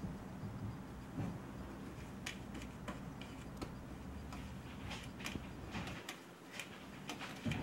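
Scattered soft ticks and scratches as a kitten paws and pounces at a string on carpet, over a low steady hum that drops away about six seconds in.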